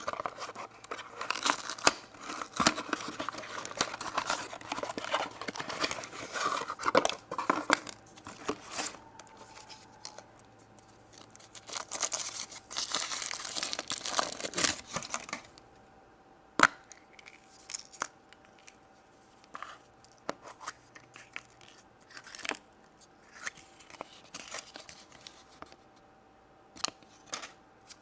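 Foil wrapper of a chocolate surprise egg being torn and crinkled off by hand, with dense crackling for about the first fifteen seconds. After that come scattered small clicks and taps.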